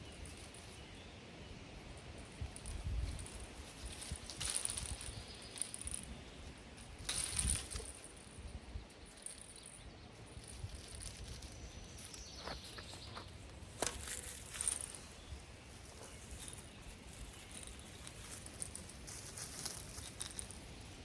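Faint steady outdoor ambience with a few short rustles and clicks of handling scattered through it, the loudest a little after 7 s and around 14 s.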